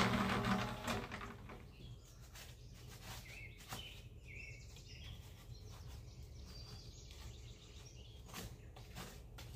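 A small electric cement mixer runs with a steady mechanical hum and hiss, then stops about a second in. After that, birds chirp, with a few sharp knocks and a faint low rumble.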